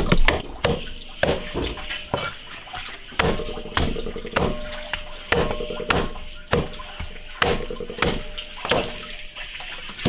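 Cleaver chopping air-dried chicken into pieces on a wooden chopping block cut from a tree trunk, about two chops a second at an uneven pace.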